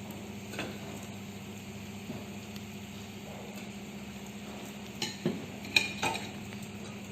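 A metal spoon stirring chicken leg pieces through frying masala in a pot, the oil sizzling softly, with sharp clinks of the spoon against the pot: one under a second in, then several about five to six seconds in. A steady low hum runs underneath.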